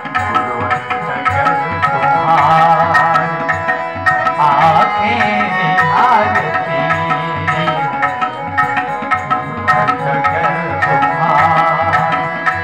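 Hindi devotional song (bhajan): tabla keeps a steady rhythm under held tones, and a singing voice comes in and out in phrases.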